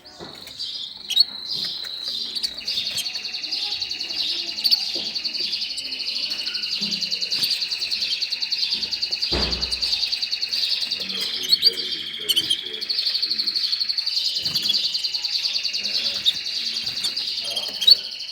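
Pet songbird singing a long, unbroken rolling trill, high-pitched and rapidly pulsing, with a short dull knock about halfway through.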